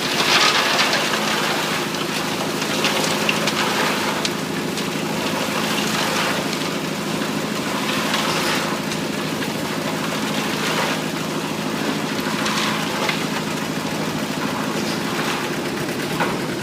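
Heavy construction machinery running steadily: the engine of a road-construction mixer working with a site truck, with irregular bursts of gritty crunching from material being worked.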